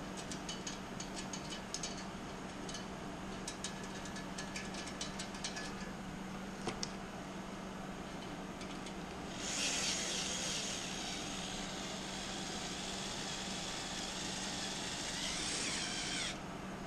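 Light metallic clicks as a hose clamp band is worked around an exhaust pipe and its springs. Then, from about the middle, a DeWalt gyroscopic cordless screwdriver runs steadily for about seven seconds, driving the hose clamp's screw tight, and stops suddenly.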